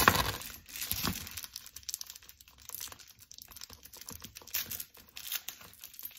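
Clear plastic wrapping crinkling and rustling as a handbag's chain strap is pulled out and unwrapped, loudest at the very start, then in short irregular crackles.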